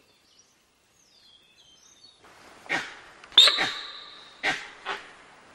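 Alarm calls of spotted deer, sambar and monkeys at a tiger: four sharp, bark-like calls in the second half, the loudest carrying a high note held for about a second. Faint bird chirps come before them.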